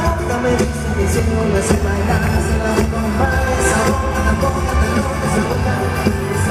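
Live pop band playing a Latin pop song at a concert, with steady bass and drum hits, heard from the audience.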